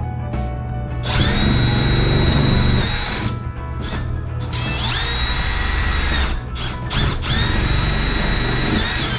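Power drill running in three bursts of about two seconds each. Each burst is a high, steady whine that spins up and winds down, over background music.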